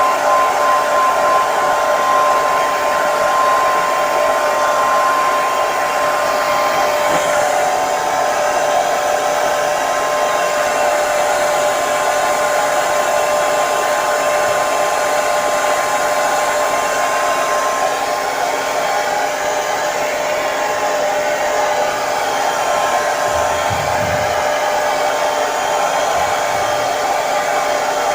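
Handheld hair dryer running steadily, a rushing fan and air noise with a constant motor whine. A faint low thump near the end.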